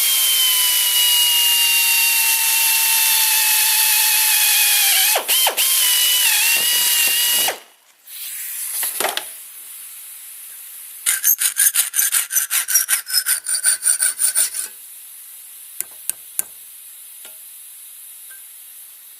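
Power tool cutting a small piece of steel: a loud steady grinding whine whose pitch sags slightly under load, running about seven and a half seconds before it stops abruptly. After a short lull comes a rapid run of rasping strokes, about seven a second, lasting nearly four seconds.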